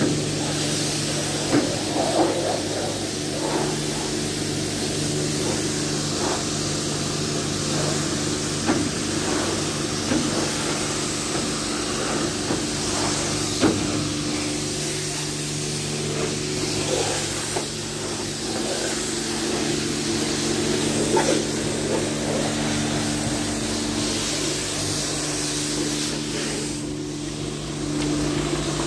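Pressure washer jet hissing steadily as it sprays water against a van's side panels, over a steady machine hum.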